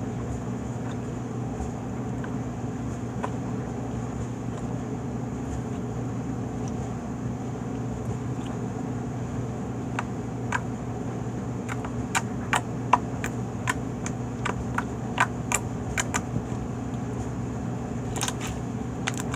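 Slime being squished and stretched in the hands, giving a run of sharp clicks and pops about two a second in the second half, and a couple more near the end, over a steady low hum.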